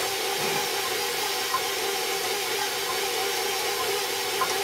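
Electric bowl-lift stand mixer running steadily on low speed, a constant motor hum as it beats dry flour-and-cocoa mix into whipped eggs.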